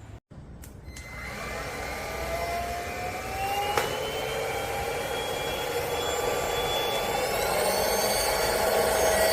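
Airbot Supersonics Aura cordless stick vacuum's motor starting about a second in and running with a high whine that rises slowly in pitch. There is a sharp click about four seconds in, and the whine steps up higher about seven seconds in.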